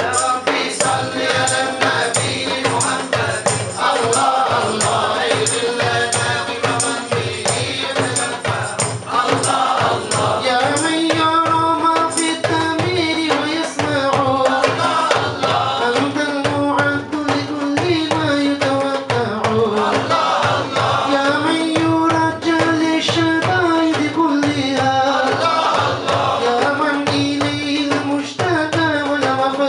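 Male voices singing a devotional nasheed together over frame drums and a jingling tambourine that keep a dense, steady beat. From about ten seconds in, the voices carry a clear melody line over the drums.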